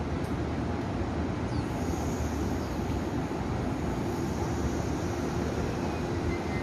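Taiwan Railway EMU500 electric multiple unit starting to pull out of the station, with a faint, steady, high-pitched whine from its IGBT-VVVF traction inverter coming in about two seconds in over a steady wash of noise.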